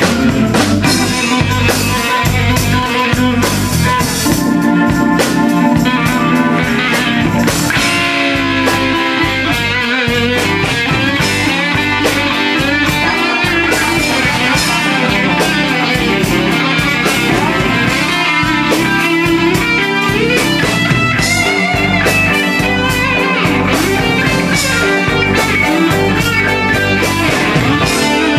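Live blues-rock band in an instrumental break: an electric guitar plays a lead solo with bending, wavering notes over drums and rhythm guitar.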